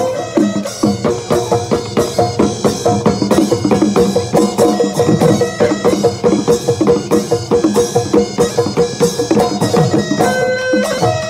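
Assamese Bihu folk music: fast, dense drumming, with a held melody note running over the beat.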